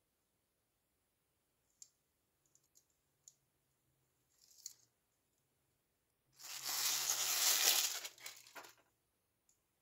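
A toy's wrapping being torn and crinkled open in one loud stretch of about two seconds, after a few faint clicks and a brief rustle.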